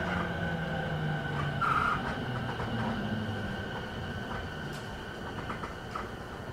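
Running sound inside a JR 209 series electric commuter car on the move, with the wheels rumbling on the rails. The traction motors' low tone falls in pitch as the train slows, and there is a short high squeak about two seconds in.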